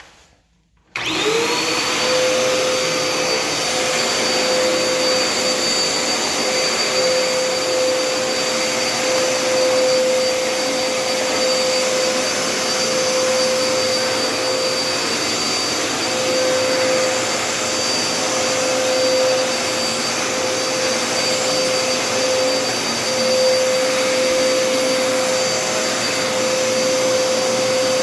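Dirt Devil Endura Reach stick vacuum switching on about a second in, its motor whine gliding quickly up to a steady pitch, then running steadily while vacuuming a tile floor.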